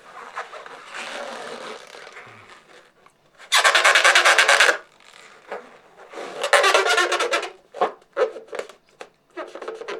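Hands rubbing an inflated latex balloon, making two loud stretches of rapid rubbery squeaking with a few short squeaks and creaks between.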